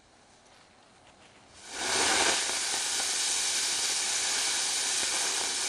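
A firework burning with a loud, steady hiss that starts suddenly about a second and a half in, with no bang.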